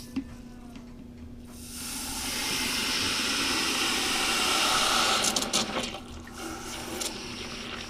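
Water pouring into a water maker's low-pressure filter housing to pre-fill it. It starts about a second and a half in, grows louder, and stops after about four seconds with a few knocks. A faint steady hum runs underneath.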